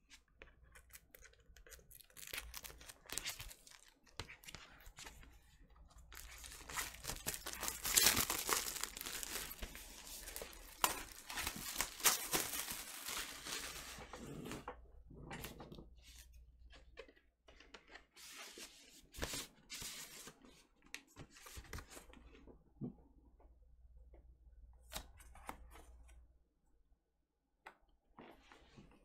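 Packaging being torn and crinkled as a 12-inch vinyl single's sleeve is opened, loudest and most continuous about six to fourteen seconds in, followed by scattered rustles and handling noises of the record and its paper inner sleeve.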